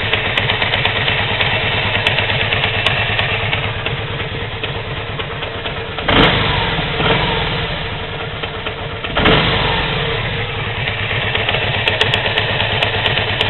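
Kawasaki Vulcan 750 V-twin motorcycle engine idling with a fast, steady knocking from inside the motor, which the owner is sure is not the cam chains. The throttle is blipped twice, about six and nine seconds in, the revs rising and falling back each time.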